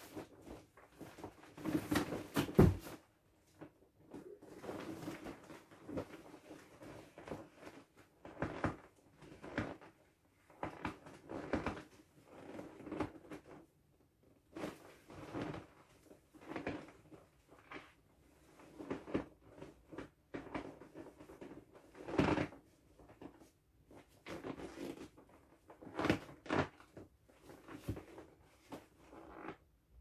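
Inflatable vinyl parrot swim ring being squeezed and pressed as it deflates: irregular creaks, rubs and squeaks of the vinyl, loudest about two seconds in and again a little past twenty seconds.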